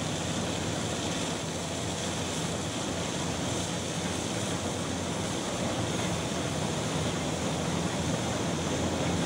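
Steady rushing hiss of a continuous stream of bulk coal pouring into a ship's cargo hold, with a low machinery hum underneath.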